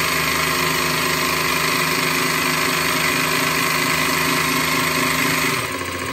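Makita DJV181Z 18 V brushless cordless jigsaw running with no load, its blade stroking freely in the air with a steady mechanical hum. About five and a half seconds in it slows and drops in pitch and level, as the speed dial is turned down toward the slow setting.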